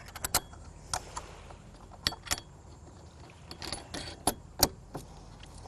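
Metal washers and knurl nuts clinking and clicking as they are fitted onto the mast-step bolts of the floorboard: a dozen or so sharp, irregular clicks.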